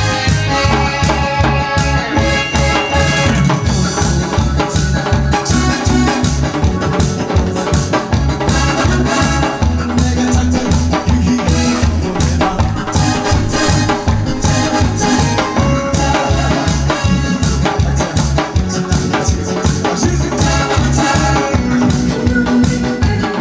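Loud instrumental music with a steady, fast beat, bass and sustained keyboard notes.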